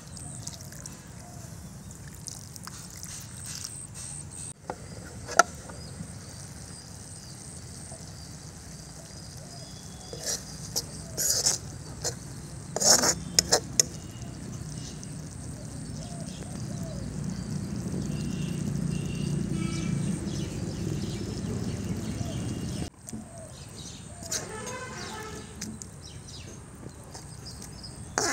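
Water poured from a plastic bottle into a black iron wok of noodles, then a metal spoon scraping and knocking against the wok as the noodles boil, with a few sharp clinks near the middle.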